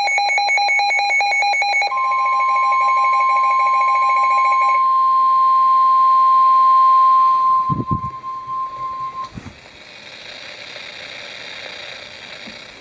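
A weather radio's alarm beeping rapidly, joined about two seconds in by the steady NOAA Weather Radio 1050 Hz warning alert tone, which runs about seven seconds and cuts off. The beeping stops partway through the tone. After the tone come a few low thumps over a faint hiss.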